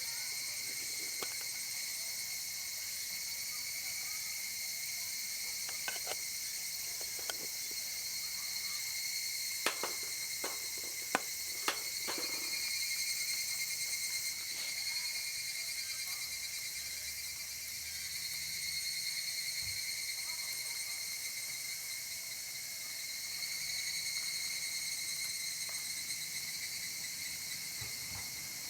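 Steady high-pitched chorus of summer insects droning without a break, with a few sharp clicks and knocks in the middle.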